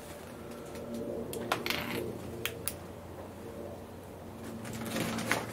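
A few short, sharp clicks and light clinks of small metal parts being handled by hand on a lathe carriage, with a denser run of them near the end.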